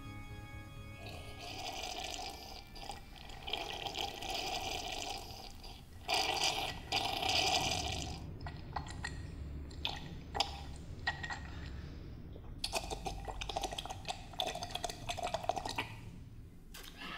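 A man drinking from a glass tumbler in long, loud slurping sips, broken by gulps and wet clicking swallows, most of them in the second half.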